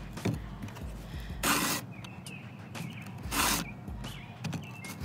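Steel chainsaw file in a hand-held filing guide rasping across the cutter teeth of a STIHL MSA 120 C's chain: two push strokes about two seconds apart, each about half a second long, sharpening the chain. Faint clicks of the tool against the chain come between the strokes.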